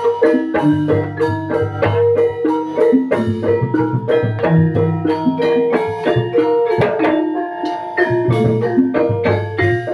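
Javanese gamelan ensemble playing in pelog tuning: bronze metallophones and gong-chimes struck in a dense, continuous run of ringing notes, with drum strokes and sustained low gong tones beneath.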